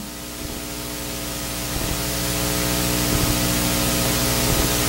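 Steady electrical hiss with mains hum, slowly growing louder.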